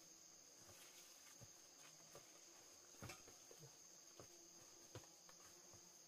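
Faint, steady high-pitched insect chirring in the forest, with a few scattered soft clicks and rustles of footsteps and brushing through undergrowth on a steep slope.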